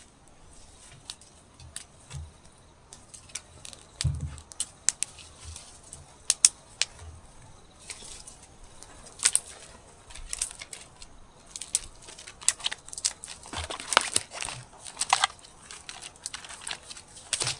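Small dry twigs being snapped and handled as kindling for a campfire: an irregular run of sharp cracks and crackles with a few dull knocks, busiest near the end.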